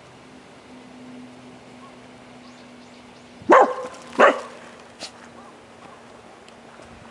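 A Jomon Shiba dog barking twice in quick succession, two short sharp barks less than a second apart about halfway through, over a faint steady hum.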